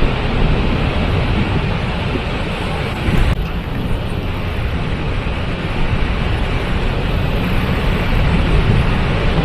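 Waterfall rushing in a steady, dense roar of falling water, heaviest in the low end.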